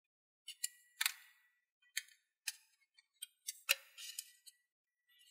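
Stiff brown origami paper crinkling and crackling as hands pinch it along a fold and open it out, with irregular sharp crackles that are loudest about a second in and again past three and a half seconds.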